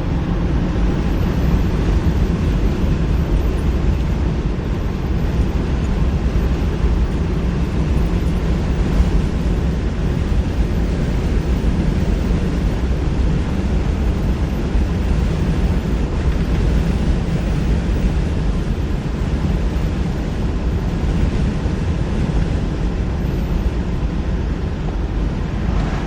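Steady low rumble of a car being driven, road and engine noise with no change in pace.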